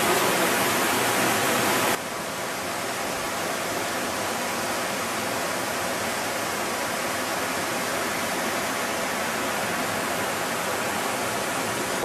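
Steady rush of falling water from a waterfall. About two seconds in it drops suddenly to a quieter, softer rush that then holds steady.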